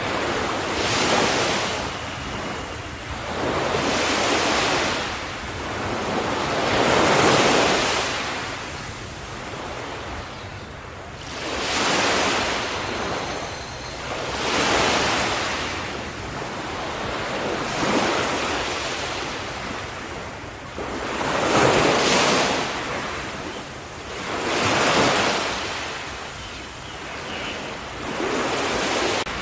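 Small ocean waves breaking and washing onto the shore one after another. Each wave is a swell of surf that rises and fades, about every three seconds.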